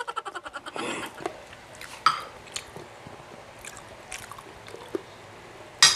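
Close-up eating sounds: wet chewing and lip smacks with scattered small clicks, and one sharper click near the end.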